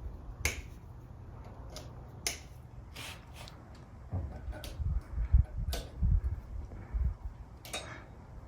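Light, irregular hammer taps on a Yamaha Banshee front hub that is seized on its splines, knocking it loose: about five sharp taps, with duller low thumps in the middle.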